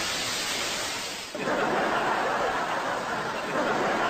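A steady hiss of noise that cuts over, about a second and a half in, to a noisy background of indistinct chattering voices.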